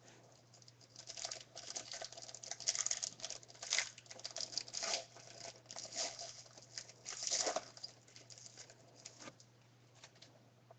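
Trading cards being handled: rustling and crinkling in irregular bursts, loudest about 4 and 7.5 seconds in, over a faint steady hum.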